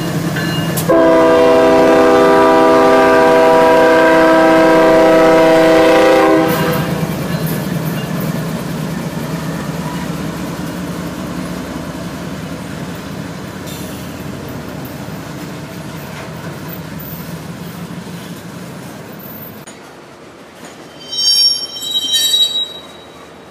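Norfolk Southern ES40DC diesel-electric locomotive's air horn sounding one long chord of several tones, about five seconds long, starting about a second in as the locomotive passes close by. The engine and rolling freight cars then rumble on, fading steadily as the train moves away, with a few short high-pitched squeals near the end.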